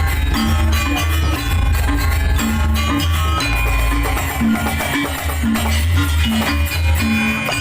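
Janger opening music: percussive Javanese-Balinese style ensemble music with steady drumming and a heavy, pulsing bass line, played loud through a sound system.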